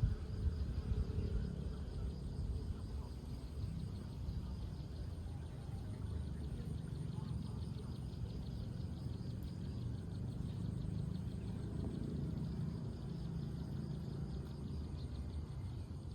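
Outdoor ambience: a steady low rumble with insects trilling faintly in a rapid, even pulse, clearer in the second half.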